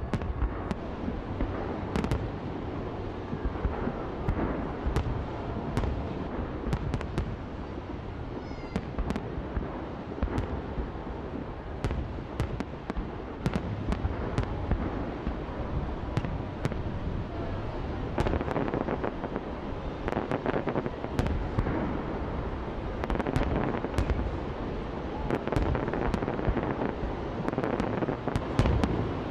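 Large aerial fireworks display: a continuous low rumble of shells bursting, with many sharp cracks and crackling over it. The bursts come thicker and louder in the last third.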